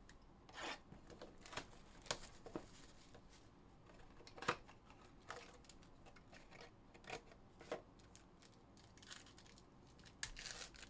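Faint handling of a 2021-22 Panini Crown Royale trading-card hobby box: scattered soft clicks and cardboard rustles as the box is opened, then the crinkle of a foil card pack near the end.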